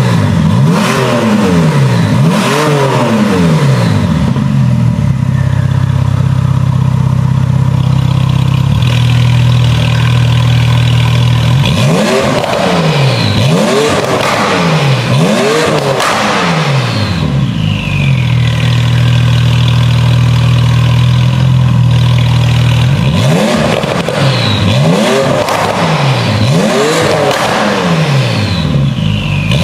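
Porsche 991.2 Carrera S's twin-turbo flat-six, breathing through a Fi Exhaust valvetronic muffler and catless downpipe, revved in quick blips about once a second. There are three rounds of revving, with spells of steady idle between them.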